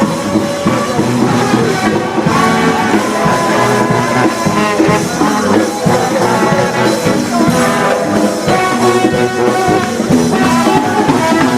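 A band playing music: several instruments over a steady beat.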